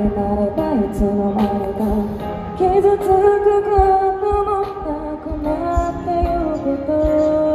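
A woman singing a Japanese song into a microphone over an amplified backing track, with long held notes over a steady beat.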